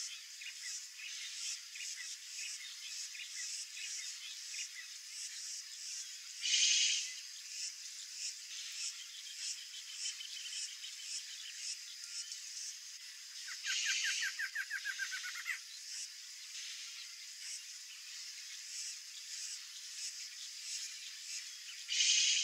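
A dense chorus of calling frogs and insects, pulsing steadily. Louder calls stand out about 7 and 14 seconds in and again near the end, the one at 14 seconds with a fast rattling series of notes.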